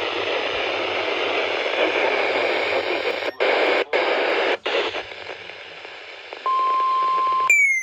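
Radio static: a steady hiss broken by a few brief dropouts, thinning after about five seconds. About a second and a half before the end a steady electronic tone near 1 kHz comes on, then a falling electronic whistle.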